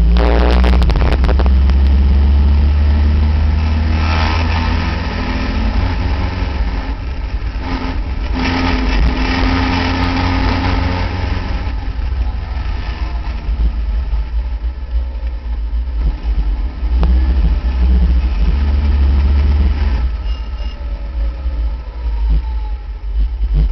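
Caterham Seven race car's engine running hard on track, heard from the open cockpit with heavy wind rumble on the microphone. The engine note rises and falls several times, with a falling pitch near the end.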